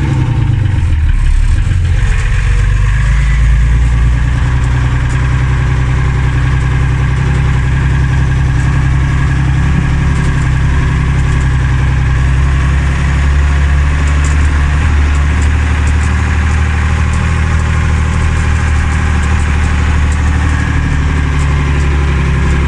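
Mercedes-Benz Unimog 406's inline-six diesel engine running steadily under way, heard from inside the cab. Its note dips briefly about a second in, then holds steady.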